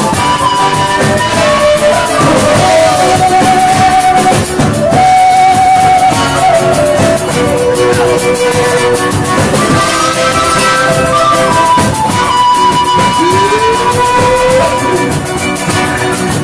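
Live Andean folk ensemble music: small stringed instruments strummed in a steady rhythm under a held melody line that steps between long notes and slides up in pitch near the end.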